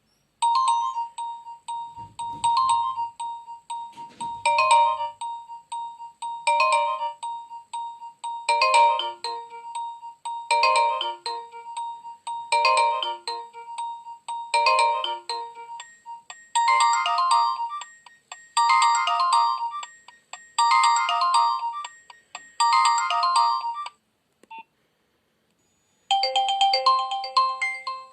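Preloaded Nokia 2600 ringtone playing: a synthesized tune that repeats a short phrase about every two seconds and turns to a denser pattern about halfway through. It stops about three-quarters of the way in, and after a short pause the next ringtone starts near the end.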